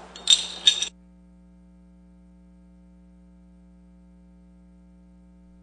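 Faint, steady electrical hum with nothing else over it, starting about a second in after a voice cuts off.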